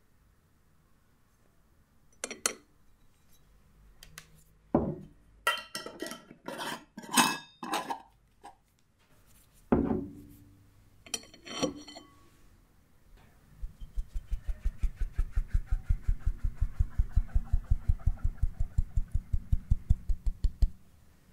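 Cake flour sifted through a stainless mesh sieve over a glass bowl. First come a few scattered clinks and knocks of metal on glass. Then, from about halfway, a fast, even tapping of about six taps a second for several seconds as the sieve is knocked to shake the flour through the mesh.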